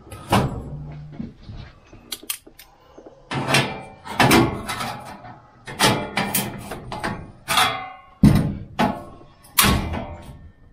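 Locking pliers and a laser-cut sheet-metal panel clanking as a tab is gripped and bent by hand: a string of about ten sharp metal knocks, several of them ringing on briefly.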